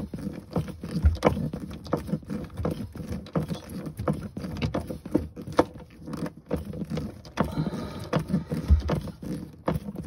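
Handling noise from screwing a strap that holds a corrugated plastic dishwasher drain hose to the top of a sink cabinet: irregular clicks, scrapes and small knocks of the hose, strap and screwdriver, with a dull thump about a second in and another near the end.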